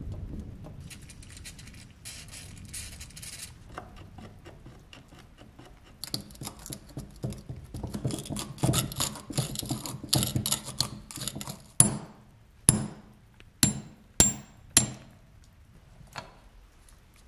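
Rusted steel parts of a 1930s Accles & Shelvoke Warrior air pistol grating and clicking as the seized barrel is worked loose by hand. Then five sharp metallic hammer taps, each ringing briefly, come in quick succession near the end.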